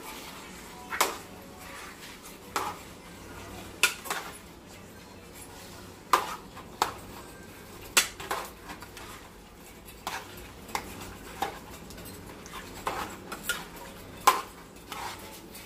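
A spatula knocking and scraping against the side of a metal pot while meat and vegetables are stirred: about a dozen irregular sharp clacks, the loudest near the end.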